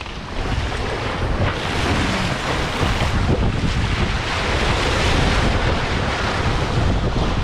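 Water rushing past a trimaran's hulls as it sails fast downwind, with wind buffeting the microphone. The rush swells a couple of seconds in and eases near the end.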